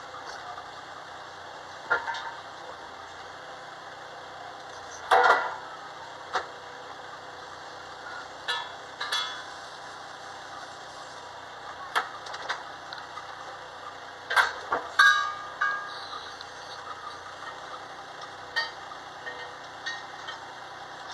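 A play excavator's steady mechanical hum, with about a dozen short knocks and clatters at irregular times as its arm and bucket are worked.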